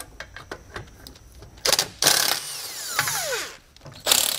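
Milwaukee cordless impact wrench with a 15 mm socket hammering brake backing-plate nuts loose in short bursts, about two seconds in and again near the end. After each burst the motor spins down with a falling whine. Light clicks come before the first burst.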